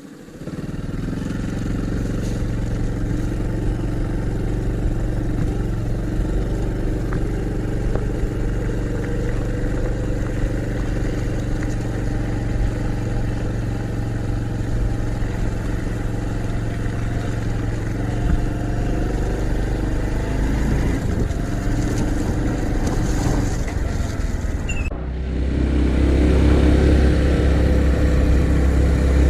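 Honda Cross Cub 110's single-cylinder engine running steadily. About 25 seconds in the note changes and becomes louder and deeper.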